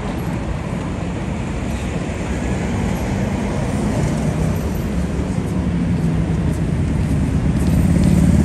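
Road traffic on a city street: a steady low engine hum that grows louder toward the end.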